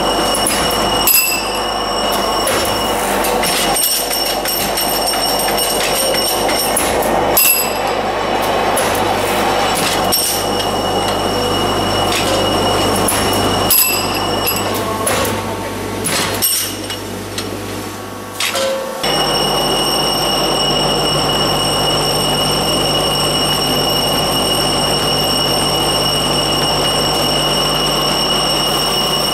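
Industrial tube-production machinery running loudly. First a high-speed extrusion machine works with a steady mechanical din and a sharp clack about every six seconds. About two-thirds of the way in the sound changes abruptly to the tube-feeding line, a very even hum with a constant high whine.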